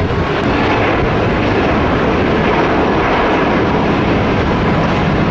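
Airliner's engines running close by: a loud, steady rush of noise that holds level throughout.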